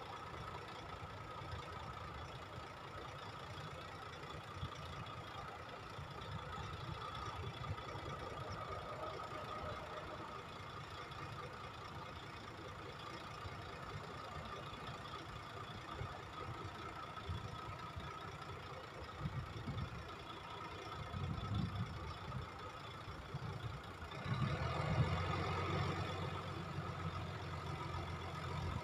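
Heavy dump truck's diesel engine running steadily at idle while its tipper bed is raised. About 24 seconds in, the engine grows louder and fuller.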